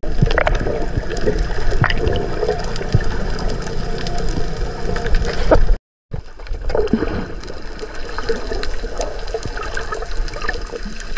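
Water heard from an underwater camera: a muffled, steady rushing and gurgling with scattered small clicks and bubbles. The sound drops out completely for a moment a little before six seconds in, then resumes.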